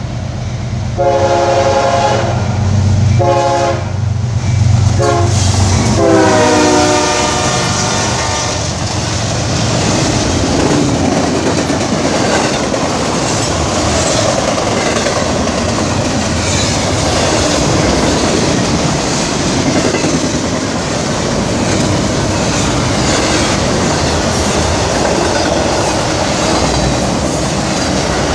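Freight train horn sounding three blasts over the low rumble of the approaching diesel locomotive, the last blast dropping in pitch as the locomotive passes. Then intermodal double-stack and flatcar wagons roll by close, a steady clattering of wheels on rail joints.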